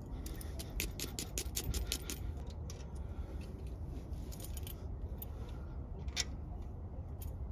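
Hand wire brush scrubbing metal cable terminals clean, a fast run of scratchy strokes for about two seconds. After that come scattered light clicks and knocks as the cable is handled and fitted onto the starter's terminal stud.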